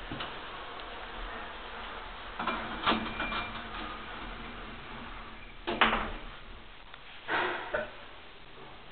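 KONE elevator's automatic sliding doors opening and then closing over a steady low hum from the car. There is a short tone with some clatter about three seconds in, a sharp clunk near six seconds as the doors shut, and another thud a second and a half later.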